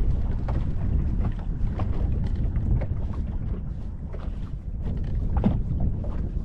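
Wind buffeting the microphone on an open fishing boat: a loud, gusting low rumble with scattered faint ticks and knocks over it.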